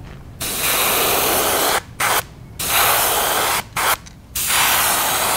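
Airbrush spraying paint: hissing air that is triggered on and off in about five bursts, some over a second long and some very short, with brief gaps between.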